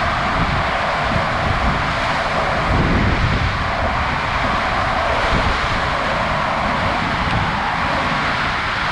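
Wind buffeting the microphone with an uneven low rumble, over a steady rushing hiss.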